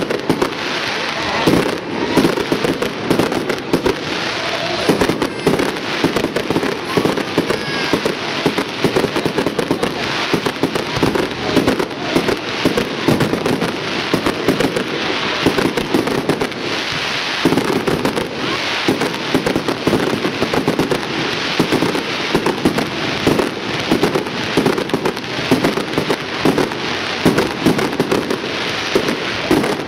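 Aerial fireworks display: a dense, continuous barrage of shell bursts, bang after bang with no break.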